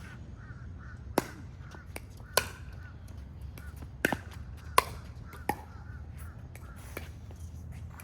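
Pickleball rally: sharp pops of paddles striking the hollow plastic ball, about seven hits roughly a second apart, with a quick pair about four seconds in.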